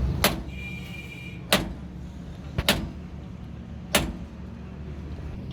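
Four sharp knocks at uneven intervals, the third one doubled, over a steady low hum. A brief high ringing tone sounds about half a second in.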